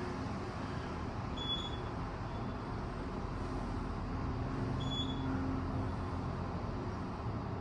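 Otis glass traction elevator cab travelling, a steady low hum and ride rumble, with a short high beep about a second and a half in and again about five seconds in.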